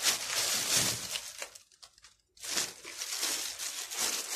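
Thin plastic shopping bags rustling and crinkling as packs of meat are handled inside them, in two stretches with a brief pause about two seconds in.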